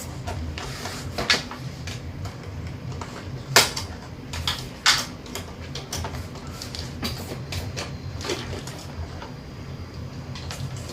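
Irregular clicks and knocks of a toy cash register's plastic parts being handled and pulled from their packaging, over a steady low hum.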